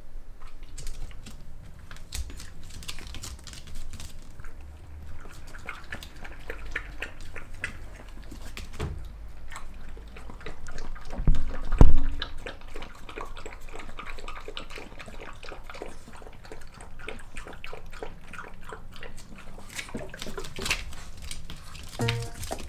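Dogs making close-up wet mouth sounds, licking and chewing in a steady run of small clicks and smacks, with one loud thump about halfway through.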